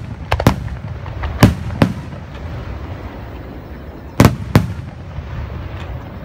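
Aerial firework shells bursting overhead: about six sharp bangs, mostly in pairs, with a low rumble between them.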